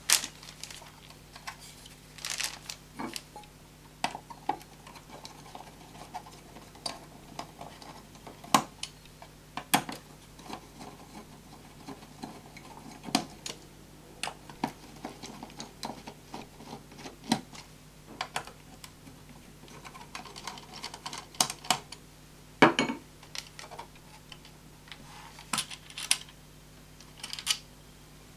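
Irregular clicks, taps and light clatter of hands handling small computer hardware and its parts, over a faint steady low hum.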